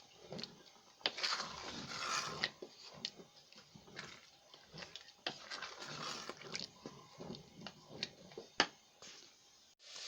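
A spoon stirring thick rice pilau in a cooking pot: irregular scrapes and light knocks against the pot, with one sharper click near the end.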